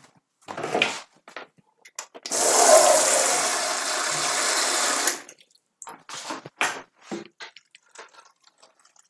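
Water running hard for about three seconds, then stopping suddenly, followed by a few light knocks and a soft pour of water onto chopped cabbage in a plastic blender jar.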